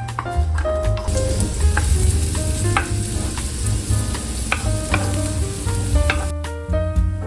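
Food sizzling in a frying pan, a steady hiss that starts about a second in and stops shortly before the end, with a few stirring scrapes.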